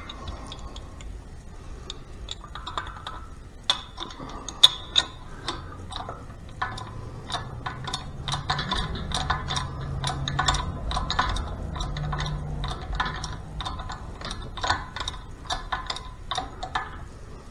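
Shop press being worked to bring its ram down on a bearing installer tool, pressing a needle bearing into a Harley 5-speed transmission drive gear: a run of irregular light metallic clicks and ticks, a few a second, with a faint low hum through the middle.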